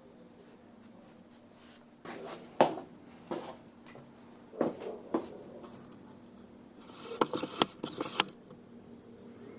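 Scattered light knocks and scrapes of objects being handled, ending in a quick run of sharp clicks.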